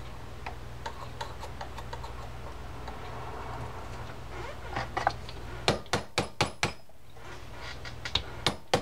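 Light metal-on-metal taps from a pin punch being tapped to drive a roll pin out of a spinning reel's handle shaft: a quick run of sharp taps about two-thirds of the way in and a few more near the end, over a low steady hum.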